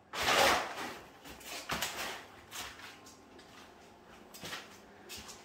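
A loud rustle just after the start, then a few softer scuffs and rustles spaced roughly a second apart: footsteps and rustling on plastic dust sheets strewn with stripped wallpaper.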